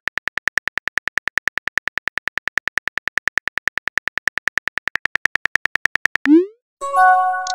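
Chat-app keyboard typing sound effect: rapid, even synthetic key clicks, about eight a second, as a message is typed out. Near the end the clicks stop, a short rising swoosh marks the message being sent, and a brief chime of several tones follows.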